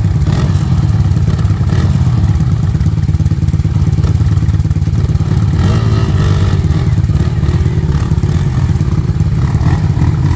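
Enduro motorcycle engine running while riding on a trail, a loud, steady low rumble.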